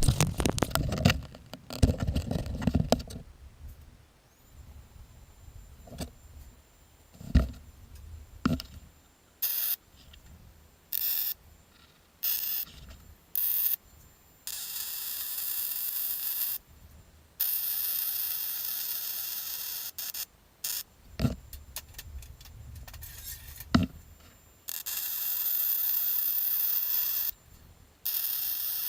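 Welding arc on the steel base frame, hissing and crackling in bursts that start and stop sharply: several short tack welds, then longer welds of two to three seconds each. Near the start, handling noise and a few sharp knocks as the pieces are set up.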